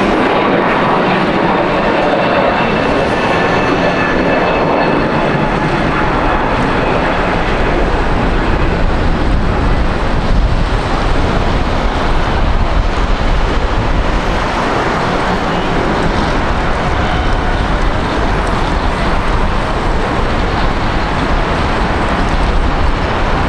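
An Airbus A321neo's jet engines at takeoff thrust during the climb-out, giving a steady loud roar. A faint high whine fades in the first few seconds, and a low rumble grows stronger as the aircraft draws away.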